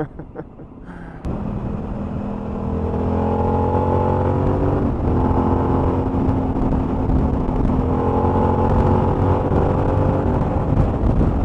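Suzuki V-Strom 1000's V-twin engine under hard acceleration, the revs rising and dropping back twice at gear changes, now that the first oil change is done and the running-in rev limit is lifted. It starts about a second in and cuts off suddenly at the end.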